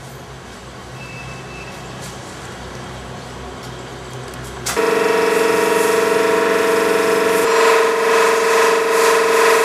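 A low hum, then a loud steady horn-like tone starts suddenly about five seconds in and holds without changing pitch.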